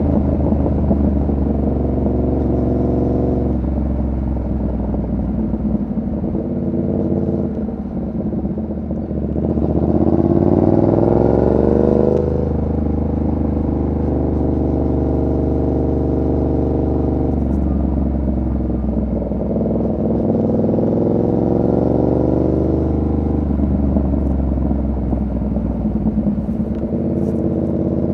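A Yamaha MT-07's 689 cc parallel-twin engine running under way. About nine seconds in it revs up, rising in pitch and getting louder, then breaks off suddenly near twelve seconds before settling back to steadier running.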